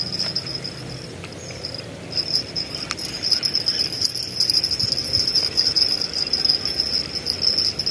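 Insects chirring in a steady high-pitched drone, breaking off briefly about two seconds in.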